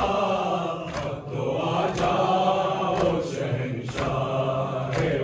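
Male voices chanting a noha, a Muharram mourning lament, together with sharp strikes about once a second that keep its beat, typical of congregational chest-beating (matam).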